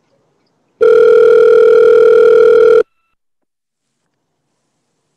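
Telephone ringback tone, the steady electronic tone a caller hears while the line rings at the other end: one tone about two seconds long, starting about a second in, then a pause. The call is going through and has not yet been answered.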